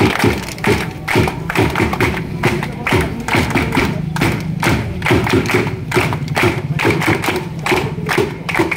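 A drum beaten in a fast, steady rhythm, with a group clapping hands along in time.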